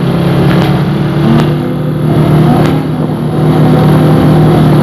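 A road vehicle's engine running steadily under road noise, its pitch rising slightly about a second and a half in.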